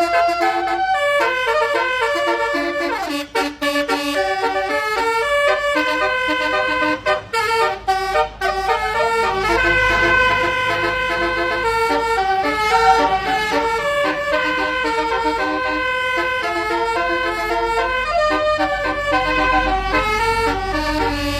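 Telolet horn, a set of multi-tone air horns of the kind fitted to Indonesian buses, playing a tune in quick stepped notes. A low engine rumble swells underneath about ten seconds in and again near the end.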